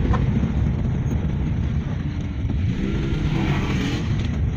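Moving car heard from inside the cabin: a steady low rumble of road and engine noise.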